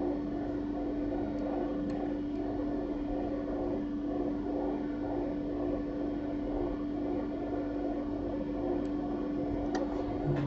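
Steady computer fan hum holding one constant tone over a faint even hiss, as the machine renders.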